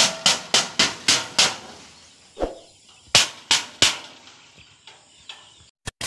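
Sheet of corrugated galvanized iron being banged to scare sparrows off a rice field: a quick run of about six metallic bangs, a pause, then three more, fading to fainter knocks near the end.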